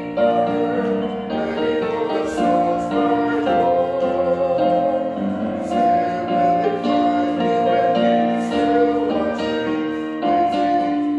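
Congregation singing a hymn to keyboard accompaniment: slow, held notes that change chord about every second.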